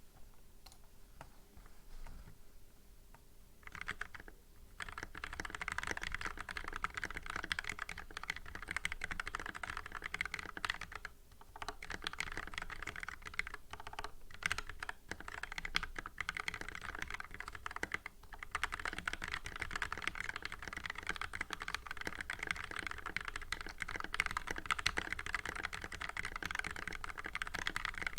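Fast typing on a Cooler Master MasterKeys S mechanical keyboard with lubed Gateron Yellow linear switches, Tai Hao ABS keycaps and lubed stabilizers. A few scattered key presses give way, about four seconds in, to a near-continuous run of rapid keystrokes, broken by a couple of short pauses.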